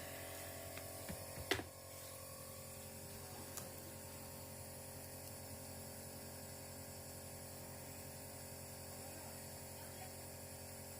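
Electric nebulizer compressor running with a steady hum. A single sharp click about one and a half seconds in.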